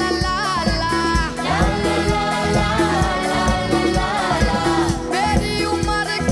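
Young voices singing an upbeat Hindi film song live, a lead singer with a group of backing singers, over a band with a steady beat.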